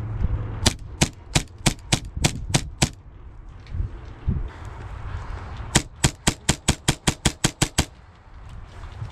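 Airsoft pistol, a Tokyo Marui Hi-Capa 4.3, fired in quick semi-automatic shots: a string of about ten sharp cracks, then after a pause of about three seconds another, faster string of about ten.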